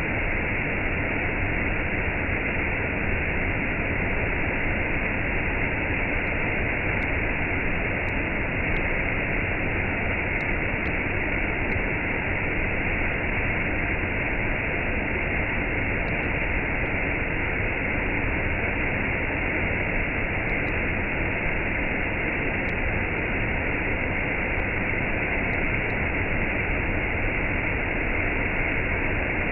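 Waterfall and cascade rushing in a steady, unbroken roar, with the upper treble cut off so that it sounds dull.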